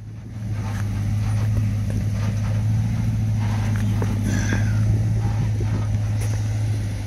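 Off-road vehicle engine pulling under load while rock crawling: a steady low drone that picks up about half a second in and eases off near the end, with a few faint knocks.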